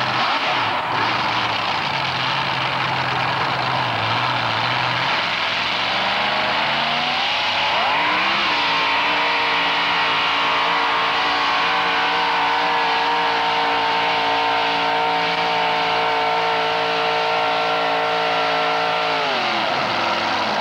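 Modified four-wheel-drive pulling truck's engine revving up from a low idle and then held at high, steady revs under full load while it drags the weight sled. Near the end the revs fall away sharply as the throttle is let off.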